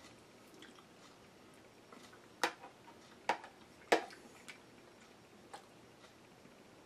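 Metal spoon knocking and scraping against a red plastic food container while spaghetti is scooped up: three sharp clicks in quick succession about two and a half to four seconds in, then a couple of fainter ticks.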